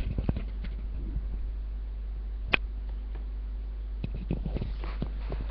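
Scattered small clicks and knocks from the webcam being handled and moved, with one sharp click about two and a half seconds in, over a steady low electrical hum.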